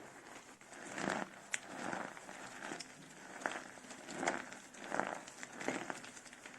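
Dry soap cups made with starch being crushed and crumbled by hand: a series of about six crisp crunches, roughly one a second, with a single sharp click between the first two.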